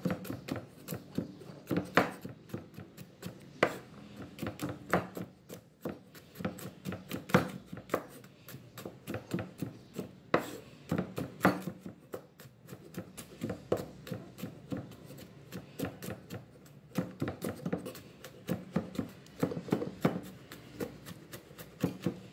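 Knife mincing garlic on a cutting board: quick, uneven chopping strokes, several a second, with some louder knocks among them.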